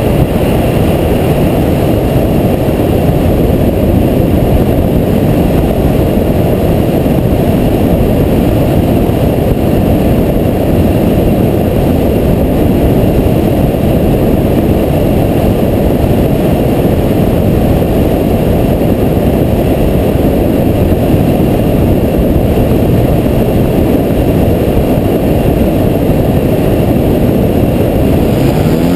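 Steady, loud rush of wind buffeting a GoPro mounted on a flying FPV wing. Near the very end the Hacker A30L brushless motor and propeller start up with a rising whine as the throttle comes up.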